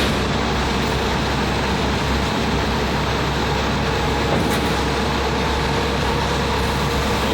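Forklift running steadily while it holds an engine and transmission, a constant mechanical noise with a faint steady hum.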